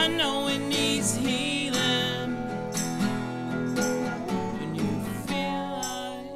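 Live band music: strummed acoustic guitar with drums and a singing voice, settling about five seconds in onto a held final chord that fades away.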